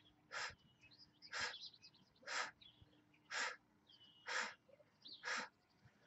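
A woman's short, sharp exhales through the mouth, about one a second, six in all, each one marking a quick hip lift off the floor in a jackhammer ab exercise.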